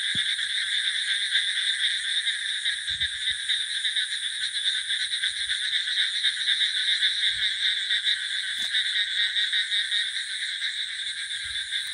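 Dense night chorus of frogs calling steadily, with a thin high steady trill above it.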